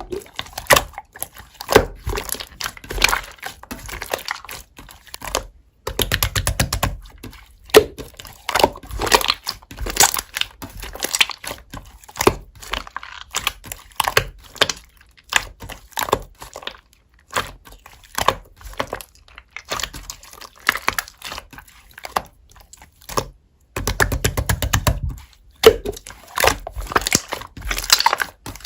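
Clay slime being squished and stretched by hand, giving irregular sticky clicks, crackles and little pops. Two quick runs of rapid popping come about a quarter of the way in and again near the end.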